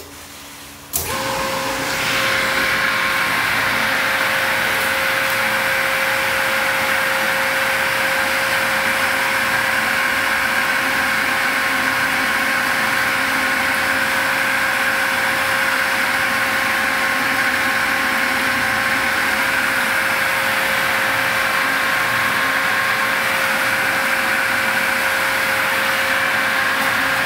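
The newly installed electric motor of a milk bulk tank washer pump starts about a second in and runs steadily with a constant tone. The owner thinks the pump may not move water until its pipe fills.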